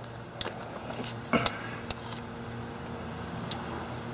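PVC pipe and plastic fittings being handled: a few light clicks and knocks, one of them a little louder about a second and a half in, over a steady low hum.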